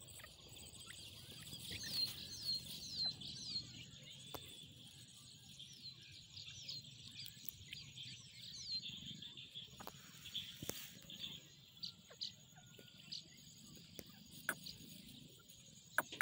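Young grey francolins chirping: a quick run of short, high chirps about two to three seconds in, then scattered chirps through the first half. Underneath runs a steady high-pitched hiss, with a few light clicks.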